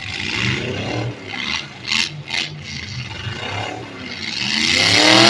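Derby truck engines revving, the pitch climbing steeply near the end, with a couple of sharp knocks about two seconds in.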